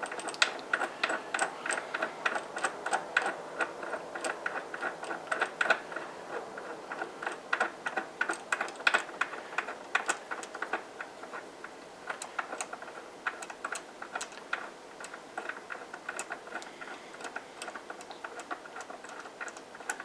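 Dillon taper crimp die being turned by hand down the threads of a Dillon RL550C press toolhead, giving a run of light metallic clicks and ticks. They are thick and quick in the first half and thin out in the second. The die is being run down toward the case mouth of a .223 Remington dummy round to set the crimp.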